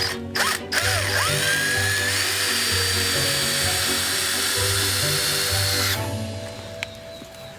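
A power tool spins up with a rising whine about a second in, runs steadily for about five seconds, then stops. Background music plays throughout.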